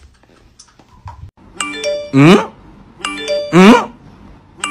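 Fairly quiet for the first second and a half, then a looping music track starts. It repeats about every second and a half: a bright chime-like chord, then a loud rising swoop.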